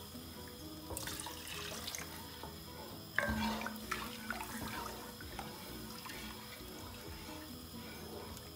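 Wooden spoon stirring chicken stock into toasted vermicelli and flour in a pot, the liquid sloshing and swirling, louder for a moment around a second in and again just after three seconds. Soft background music plays underneath.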